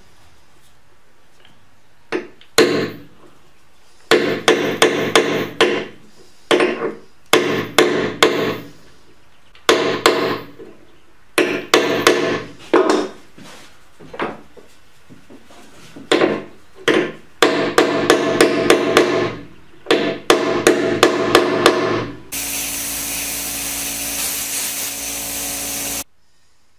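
Woodworking tools working wood: a string of short, loud bursts, many starting with sharp clicks, then about four seconds of a steady machine noise near the end that cuts off suddenly.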